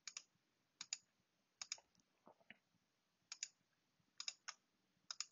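Quiet computer mouse clicks, about seven in all, each a quick snap-snap of button press and release, spaced irregularly, with a couple of fainter clicks near the middle.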